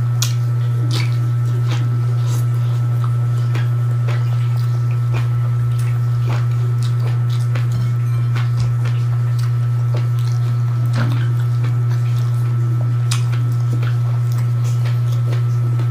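Close-up chewing and many short wet mouth clicks of a person eating greens and rice by hand, over a loud, steady low hum.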